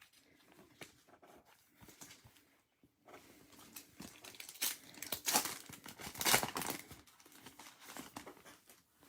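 Foil trading-card pack wrapper being torn open and crinkled, with irregular crackling that grows loudest around the middle.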